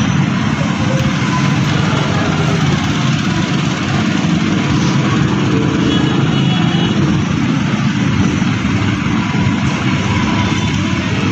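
A motor running steadily with a dense low hum, unchanging throughout.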